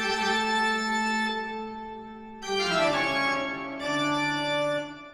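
Intro music of three long held chords, one after another, the last fading away near the end.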